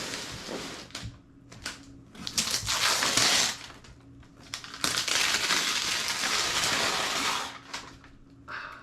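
Paper wrapping around a box crinkling and rustling as it is handled, in several noisy bursts, the longest from about five to seven and a half seconds in.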